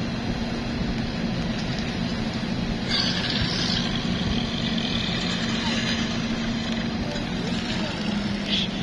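An engine idling steadily with a low, even hum. A brighter, higher-pitched noise joins about three seconds in and fades a few seconds later.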